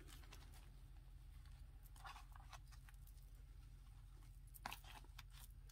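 Near silence: a few faint rustles of a hand pressing a glued fabric piece onto a paper journal page, over a low steady hum.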